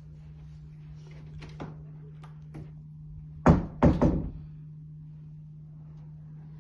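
Hinged cupboard door with a lever handle being opened: a few faint clicks, then two loud thunks about half a second apart, over a steady low hum.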